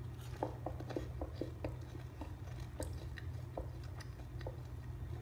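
A person chewing a crisp deep-fried soya chunk popcorn bite: small crunches come quickly in the first couple of seconds, then slow to one every half second or so.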